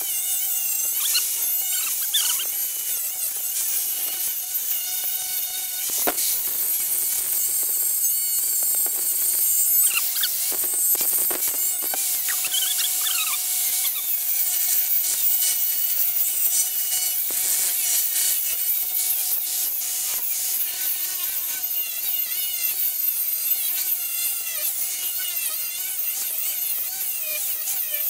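Angle grinder grinding the steel of a railroad rail: a steady hissing grind over the motor's high whine, the whine wavering in pitch as the disc is worked against the metal.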